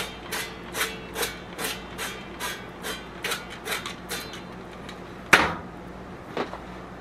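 Olive oil cooking spray can spritzed in quick short bursts, about two or three a second, into a metal smoker pot. About five seconds in comes a single sharp knock, with a fainter one a second later.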